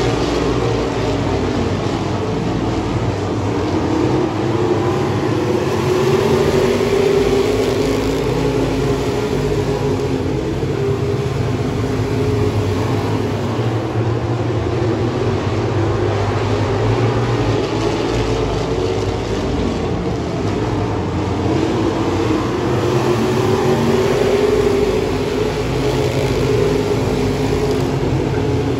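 Pure stock race cars' engines running laps together, the engine noise swelling and fading every several seconds as the cars come around and move off.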